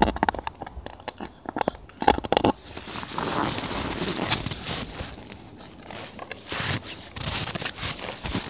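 A dog's teeth click and scrape on a plastic flying disc in quick sharp clicks for the first two seconds or so. After that comes a steady, uneven crunching of footsteps through snow.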